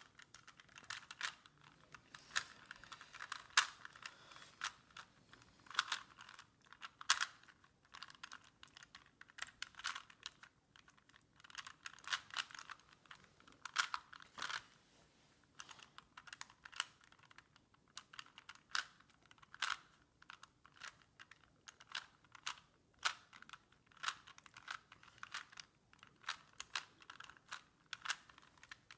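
Rubik's Cube layers being turned rapidly by hand during a speed solve: a quick, irregular run of plastic clicks and clacks.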